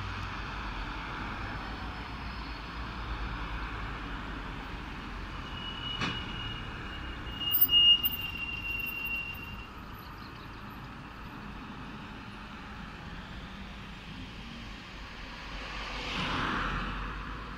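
City street traffic: a steady rumble and hiss of passing vehicles. A high steady whine lasts a few seconds around the middle and is loudest about halfway through. A vehicle swells past near the end.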